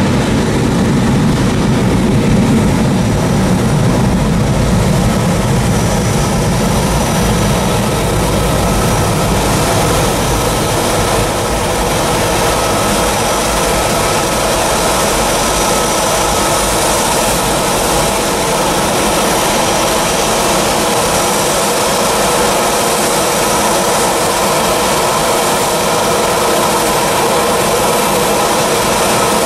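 Boeing 737's jet engines at takeoff thrust during the takeoff roll: a loud, steady roar with a high whine running through it. The deep rumble eases after several seconds as the aircraft moves away down the runway.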